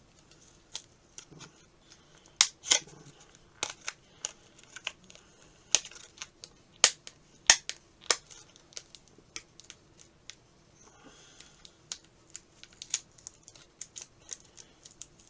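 Fingers picking and peeling tape off a tiny toy gun accessory: irregular sharp clicks and crackles, a few of them loud, spread unevenly through the stretch.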